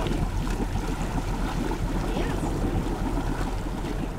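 Wind buffeting the microphone over the wash of the sea, a steady rough rush with a low hum under it, fading near the end.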